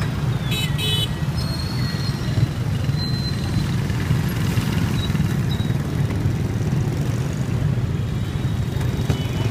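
Busy street traffic dominated by motorbikes, a steady engine and tyre rumble, with a short horn toot about half a second in.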